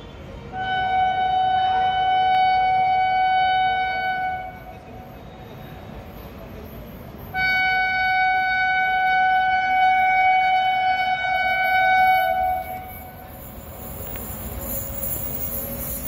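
Air horn of a WAP-7 electric locomotive sounded in two long blasts, each a single steady note, the first about four seconds and the second about five. Near the end the rumble of the approaching train grows louder.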